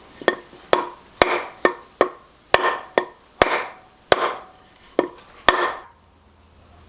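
About ten sharp hammer blows on metal, roughly two a second, each ringing briefly, driving the old axle hub seal out of the Dana 80 rear hub. The blows stop about a second before the end.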